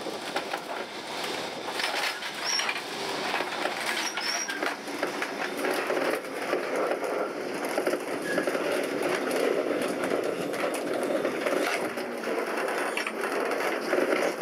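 Old wooden-bodied Lisbon street tram running on rails along a cobbled street: a steady rattling and grinding of wheels and body, thick with small clicks and knocks, with a couple of brief high squeaks about two and four seconds in.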